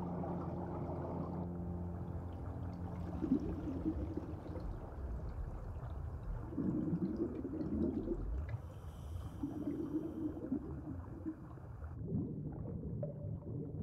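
Muffled underwater sound: a low steady hum with soft bubbling gurgles swelling up about every three seconds.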